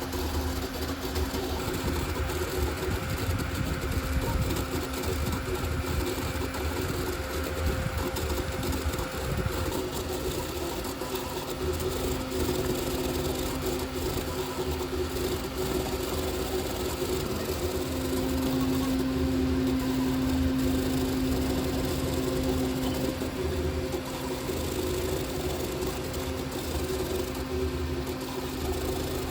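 CoreXZ 3D printer built on an Ender 3 frame printing fast at 20,000 mm/s² acceleration: its motors hum in several steady tones that waver as the moves change, over a constant whir. One tone swells for a few seconds a little past the middle.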